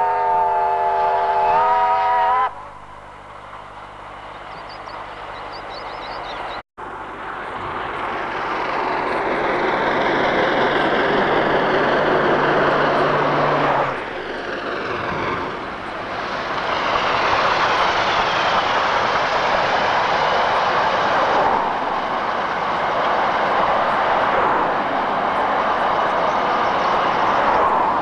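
Steam locomotive J1211's whistle sounds a chord of several tones, dipping slightly in pitch and cutting off a couple of seconds in. Then the steam train's loud, steady rush builds after a brief dropout and carries on as it passes at speed.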